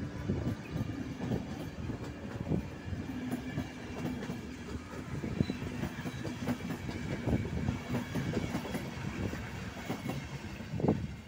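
Passenger train coaches rolling past on the track, their wheels clicking over the rail joints in a steady clickety-clack, with a louder clunk near the end.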